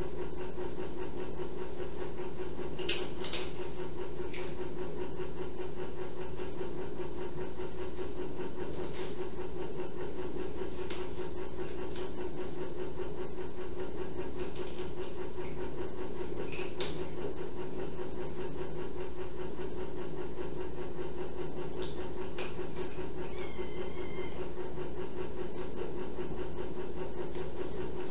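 Steady hum of room noise, with a few faint, brief high squeaks and clicks from kittens scattered through it. About three-quarters of the way in there is one small wavering chirp, like a tiny mew.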